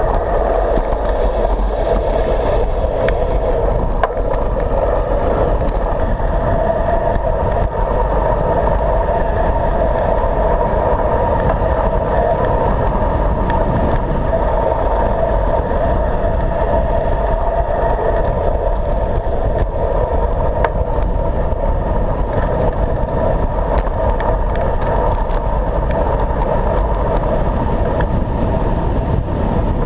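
Steady, loud wind noise on a handlebar-mounted camera during a road-bike descent, with a constant hum in the middle and a few faint knocks.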